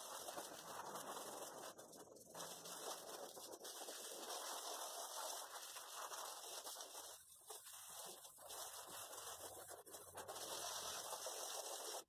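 Garden hose spraying water onto a soaked shag rug and wet concrete floor: a steady hiss and patter that dips briefly a couple of times.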